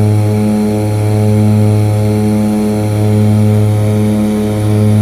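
De Havilland Canada DHC-6 Twin Otter's PT6A turboprop engine and propeller running at take-off and climb power, heard from the cabin beside the engine. A loud, steady, deep drone that swells and fades slowly about every second and a half to two seconds.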